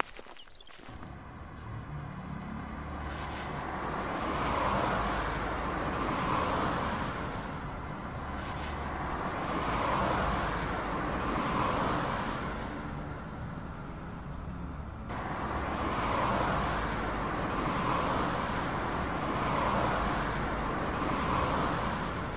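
Added sound effect of heavy army truck engines running: a low rumble with a rushing noise that swells and fades every few seconds. It begins abruptly about a second in.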